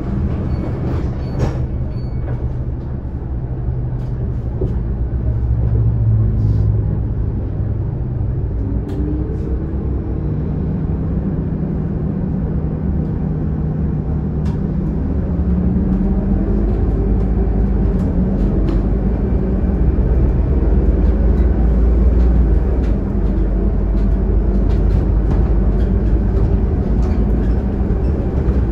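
Scania K280UD double-decker bus's five-cylinder diesel engine running, heard from inside the lower deck. Its pitch climbs for several seconds from about eight seconds in, then it settles into a louder, steady pull. Short rattles and clicks come from the bus body.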